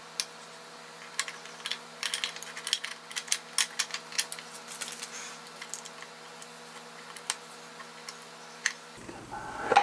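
Light metallic clicks and clinks from hand-fitting the input shaft and its bearing into a Triumph Spitfire single-rail gearbox casing. Most come between about one and five seconds in, with a few more later, over a steady low hum.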